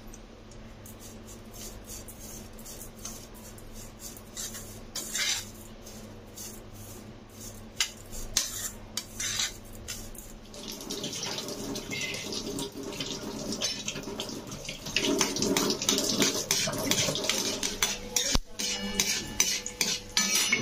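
A spoon scraping and clinking against a stainless steel bowl as flattened rice (poha) is stirred with turmeric. The stirring gets faster and louder about halfway through. Near the end, peanuts sizzle in oil in a steel kadai.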